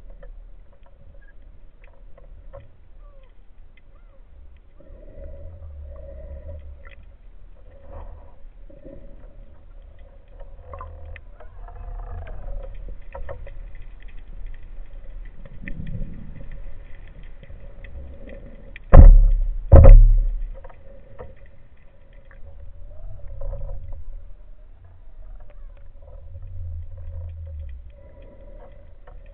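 Underwater sound picked up by a camera on a speargun: a low rumble of water and swimming movement with faint scattered clicks and a faint steady hum. About two-thirds of the way through come two loud thumps less than a second apart.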